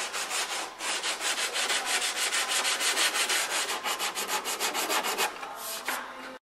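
Hand sanding of the repaired rear wheel-arch lip on a Ford Escape's body, sandpaper rubbed over filler and metal in quick back-and-forth strokes, several a second. The strokes stop shortly before the end.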